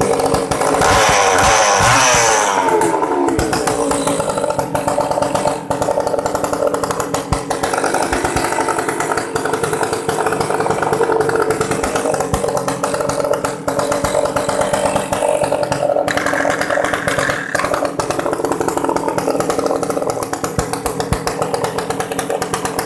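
Makita E2835 two-stroke chainsaw engine running with no bar or chain fitted, on a test run after cleaning. It comes down from high revs to a steady idle over the first few seconds and picks up briefly again about two-thirds of the way through.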